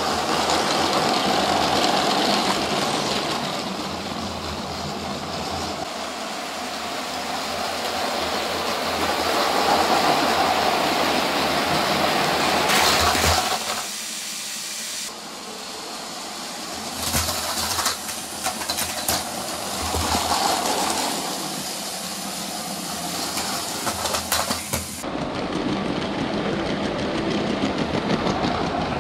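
LEGO City battery-powered train motors whirring and wheels rattling along plastic track, with the sound changing abruptly several times and a few sharp clacks in the middle as derailed train cars knock together.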